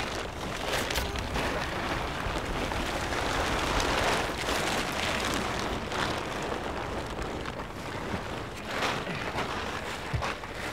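Plastic sheeting wrapped around a heavy bundle crinkling and rustling as it is heaved and shoved into a car's cargo area. The dense rustle is loudest about four seconds in.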